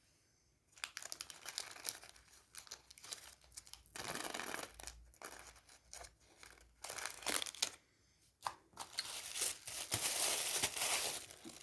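A small mail parcel's packaging being torn open and crinkled by hand. The rustling and tearing start about a second in and come in irregular spells, with short pauses.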